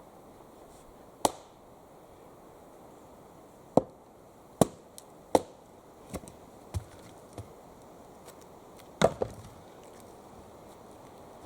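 Axe chopping wood: a series of sharp, separate chops a second or more apart, the loudest about a second in and near three quarters of the way through, with a few lighter knocks between them.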